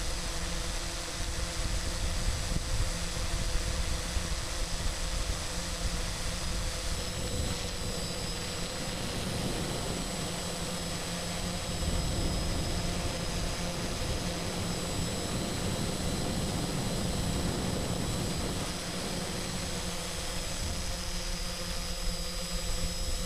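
Multirotor camera drone's motors and propellers running steadily, heard from its onboard camera: a constant whine made of several high steady tones over a rough low rumble.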